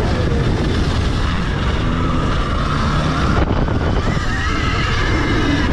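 Electric dirt bike being raced: the motor's whine rises and falls with the throttle over a loud, steady rumble and rush of wind and track noise.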